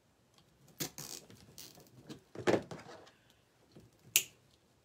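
Rustling and crinkling of purple-and-white mesh ribbon petals being handled and fastened onto a wreath board, with a single sharp click about four seconds in.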